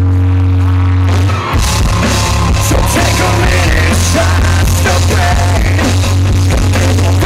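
Live rock band playing: a held chord rings for about the first second, then the full band comes in with drums, electric guitar and a male lead vocal. The sound is heavily distorted, the camera's microphone overloaded by the volume.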